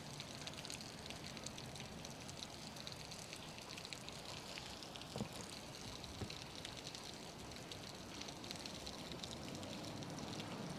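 Faint steady hiss, with two soft clicks about five and six seconds in.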